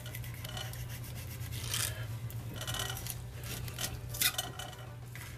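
Knife blade slicing a fillet off a scaled shellcracker (redear sunfish) on a plastic cutting board: a few short scraping strokes through skin and flesh, the sharpest about four seconds in. A steady low hum runs underneath.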